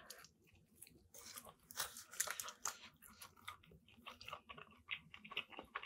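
Faint close-up chewing of a bite of sub sandwich bread, with soft irregular crunching and mouth clicks.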